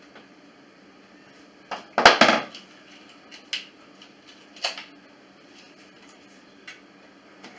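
Hand tools knocking and clattering against a wooden frame: a quick cluster of clatters about two seconds in, the loudest, then a few single sharp taps spread through the rest.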